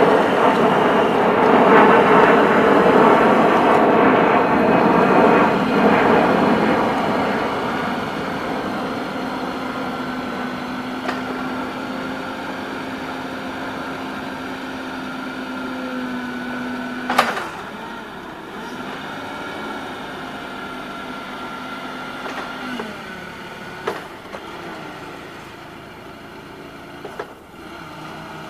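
Propane-fuelled Cat 2C6500 forklift's engine running, loud and revved for the first several seconds as the mast lifts the forks high, then dropping to a quieter, steadier running with a held hum. A single sharp click comes about 17 seconds in, and a few lighter clicks near the end.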